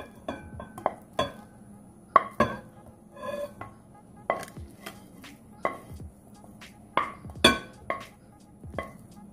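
Cooked semolina being knocked and scraped out of a pan into a glass bowl with a kitchen utensil: a string of sharp clinks and taps of metal against the pan and the bowl, several in quick pairs.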